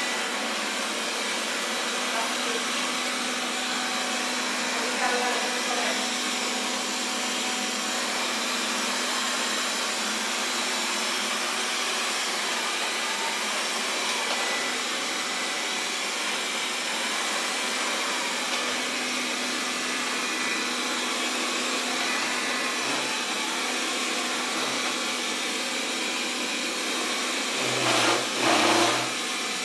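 Xiaomi Mi Robot Vacuum (Mijia) running: a steady whir of its suction fan and brushes with a constant hum. Two short, louder sounds come in quick succession near the end.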